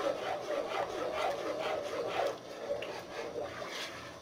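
A long spoon stirring melted soap base in a pot, scraping against the pot's bottom and sides in repeated rubbing strokes.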